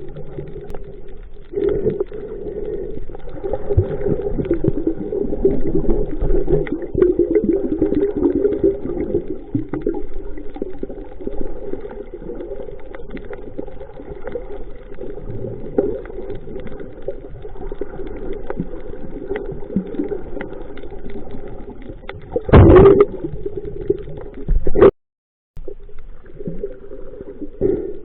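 Muffled underwater water noise through a waterproof camera housing, with sloshing and gurgling. A loud knock comes about two-thirds of the way through, and a second, sharper one shortly after.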